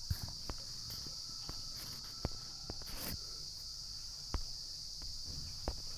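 Light, irregular taps and clicks of fingertips on a phone touchscreen over a steady, high-pitched background hiss.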